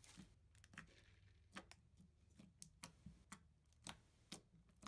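Floam slime packed with foam beads being squeezed, stretched and poked by hand, giving faint, irregular crunchy crackles and pops.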